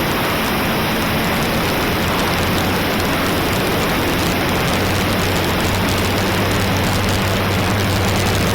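Strong wind rushing on the microphone, with the electric motor and propeller of an AtomRC Dolphin Pro RC plane humming steadily underneath; the motor hum gets louder about five seconds in.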